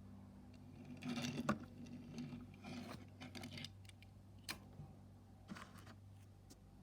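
Hands handling a small die-cast toy car and its packaging: light clicks and rustles, busiest about a second in and around three seconds in, with a sharp click later. A steady low electrical hum runs underneath.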